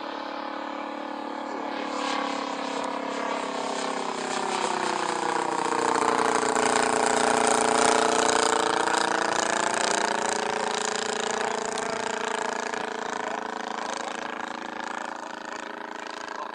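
Valach 120i-4T 120 cc inline-twin four-stroke petrol engine with straight pipes, turning a three-blade propeller on a large radio-controlled scale Hawker Typhoon in flight. It makes a steady drone that grows louder to a peak about halfway through, then fades as the plane flies past.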